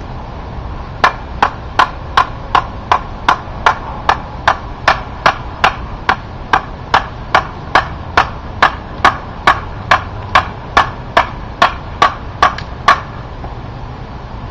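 A handmade bushcraft knife chopping into wood with a steady run of about thirty sharp strokes, roughly two and a half a second. The strokes stop about a second and a half before the end.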